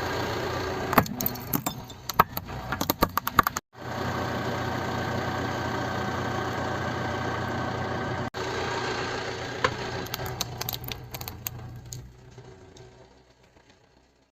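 Car engine running at low speed, with two bursts of sharp crackling and snapping as objects are crushed under its tyres. The sound fades away near the end.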